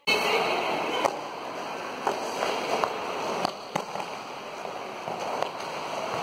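Quad roller skate wheels rolling on a rink floor, a steady rumble with scattered sharp clacks from the skates striking and landing.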